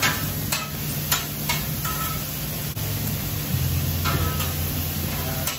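Food sizzling on a hot flat-top griddle (shrimp, cubed steak and yakisoba noodles with vegetables), over a steady low hum, with a few sharp clicks in the first couple of seconds.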